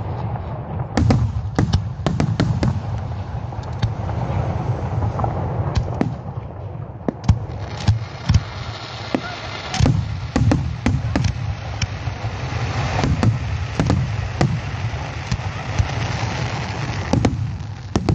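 Fireworks going off: many sharp bangs and pops in quick, uneven succession over a low rumble, with a stretch of dense crackling near the middle.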